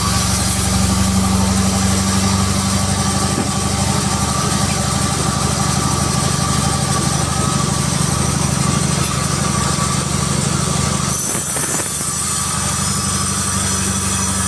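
Sawmill machinery running steadily with a constant engine hum, which dips briefly about eleven seconds in and then picks up again.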